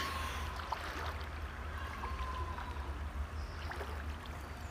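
Water sloshing and trickling as a bear swims through a pool, over a steady low rumble.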